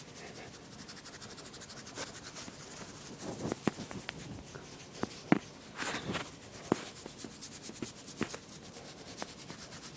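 Soft rubbing and rustling of a hand stroking a dog's fur close to the phone's microphone, with a few light clicks and taps of handling noise scattered through.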